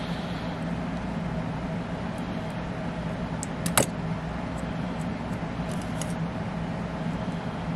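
A small motor running with a steady hum, and one sharp click or tap about four seconds in.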